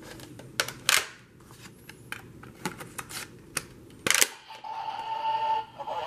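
Plastic clicks and clacks of a Kamen Rider Ryuki-style dragon-head card-reader toy being handled as an advent card is loaded, with a loud clack about four seconds in as the mechanism is closed. The toy's electronic sound effect then plays from its small speaker for about a second, a pitched held tone, near the end.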